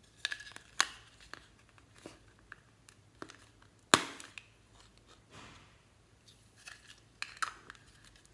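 Hard plastic toy cases clicking and knocking as they are handled, with a sharp snap about four seconds in as one is popped open. Several more clicks follow near the end.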